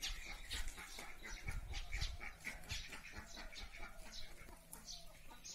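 Faint animal calls in the background: many short, high calls, several a second.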